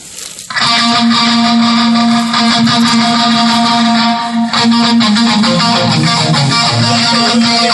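Band music with electric guitar and drum kit starts abruptly about half a second in and plays loud and steady.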